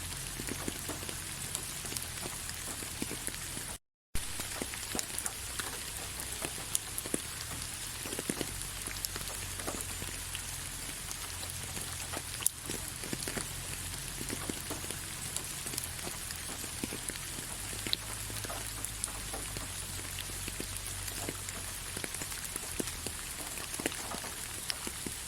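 Gentle rain falling steadily, an even hiss dotted with many separate drops ticking on a surface. The sound cuts out completely for a split second about four seconds in, then carries on.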